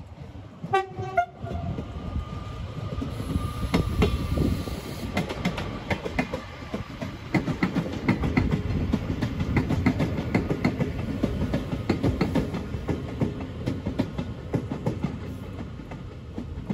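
Euskotren Serie 900 electric multiple unit passing: a short horn note about a second in, then the train's rumble with rapid, regular wheel clicks over the rail joints.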